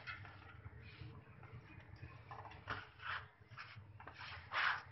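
Hands working dry rice flour in a steel plate: soft rustling and scraping of fingers through the flour against the metal, in a few short strokes, the loudest near the end, over a low steady hum.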